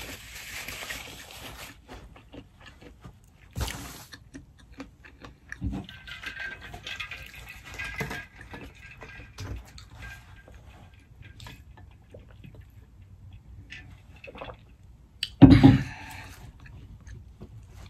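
Hands wiped with a paper napkin, rustling, then drinking from an insulated water bottle, with small liquid and handling sounds and scattered light knocks. Near the end, one loud knock as the bottle is set down on the table.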